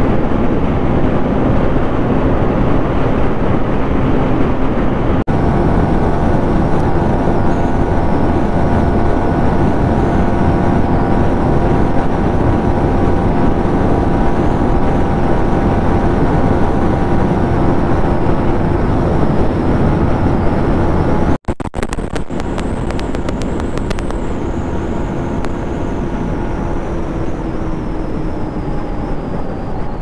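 Yamaha MT-15's single-cylinder 155 cc engine running at a steady highway cruise, its note held level over a loud rush of wind and road noise. The sound briefly cuts out about two-thirds of the way through.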